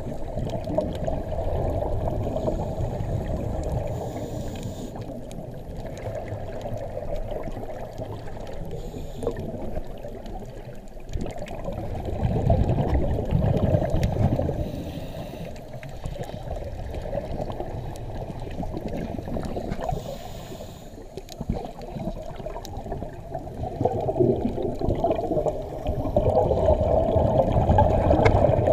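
Muffled underwater gurgling and rumbling of scuba divers' exhaled bubbles from their regulators, swelling louder about halfway through and again near the end.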